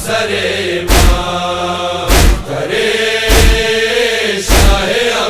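Voices chanting a noha lament in a slow, held melody over loud, regular chest-beating (matam) strikes, one about every 1.2 seconds, four in all.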